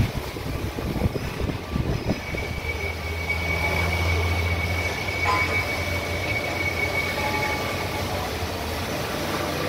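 IZTES 300 metal-cutting band saw running, with a steady low motor hum. A thin, steady high whine comes in about two seconds in and fades near eight seconds, and there are a few light knocks.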